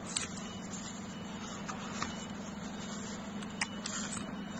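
Steady low machine hum with a few light taps and rustles as cut corrugated cardboard pieces are handled.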